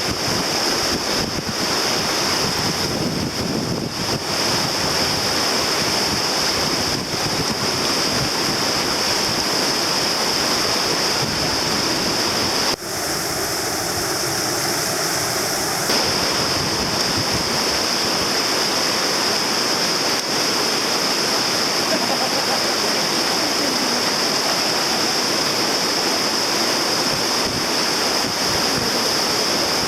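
Steady rush of whitewater from a river rapid, with a steady high hiss over it.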